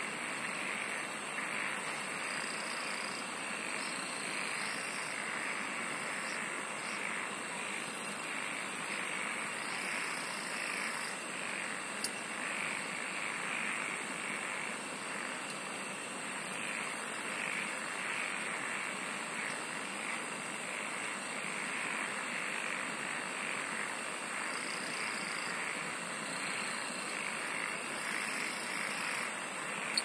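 Insects and frogs chorusing together in a steady, dense trilling chorus. A very high-pitched rapid insect trill comes in for about two seconds roughly every eight seconds.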